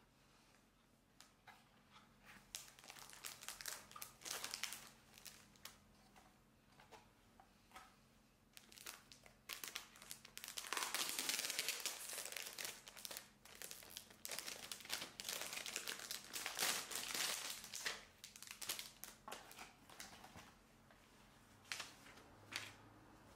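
Soft crinkling and rustling of a clear plastic bag and cardboard packaging as a parcel is opened and a cloth needle case is unwrapped. It comes in scattered handlings at first, then is densest for several seconds around the middle before tapering off.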